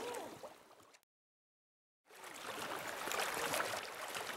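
River water rushing and splashing around a wading guide and a landing net as a king salmon is netted. The sound fades out and drops to dead silence for about a second near the start, then the splashing comes back in.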